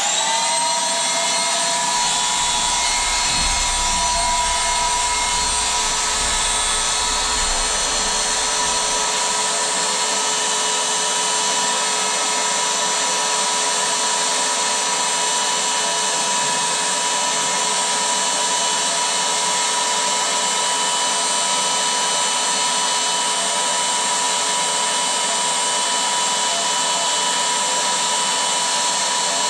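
Electric air pump switching on, its motor whine rising quickly to speed and then running steadily, blowing air into an inflatable. A low rumble sits under it for the first several seconds.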